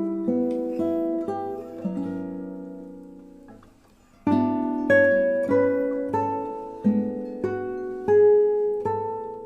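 Background instrumental music of plucked strings, single notes ringing and dying away. The music fades almost to nothing about four seconds in, then picks up again with a fresh run of notes.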